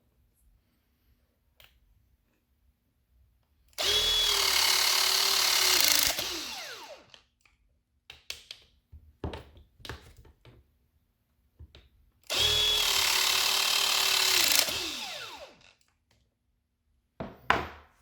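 Milwaukee M18 cordless tool motor runs twice, each time for about two seconds at a steady pitch before winding down with a falling whine. Short handling clicks come between and after the runs.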